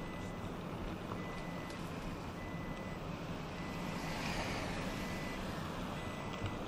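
Car driving on a road, its engine and tyre noise heard from inside the cabin, with a high electronic beep repeating about once a second. Another car passes close by about four seconds in.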